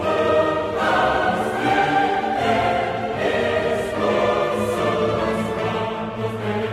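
Music soundtrack: a choir singing over orchestral accompaniment, sustained and full.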